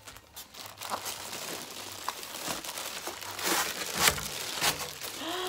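Plastic packaging crinkling and rustling as a boxed lighted vanity mirror is unwrapped and lifted out, louder in the second half with a few sharp crackles.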